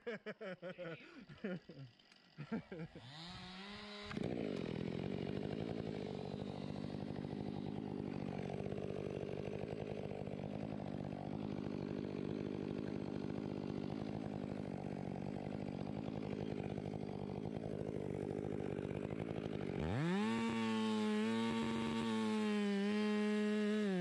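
A chainsaw running steadily at idle from about four seconds in, then revved up to a high, wavering pitch near the end.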